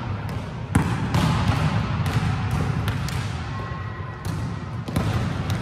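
Volleyballs being struck and bouncing on a sports-hall floor during training. About seven sharp smacks are scattered over a steady background din.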